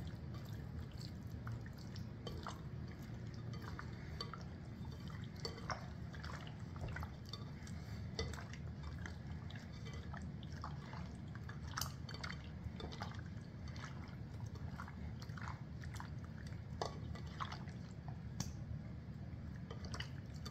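Wet squelching of a hand mixing walleye fillets in ranch dressing in a bowl: a run of small, irregular squishes and slaps.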